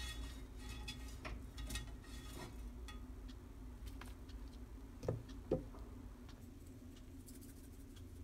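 Spatula cutting and pressing into a crisp hash brown and toast on a plate: scattered crunchy clicks and scrapes, then two soft knocks about five seconds in.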